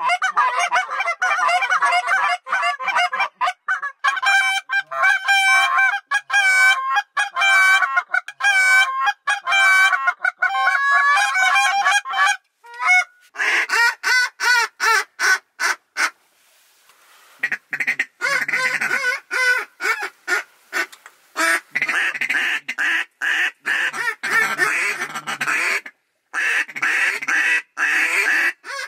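Goose honking: many loud honks in rapid, overlapping succession, broken by a few abrupt breaks about halfway through and again near the end.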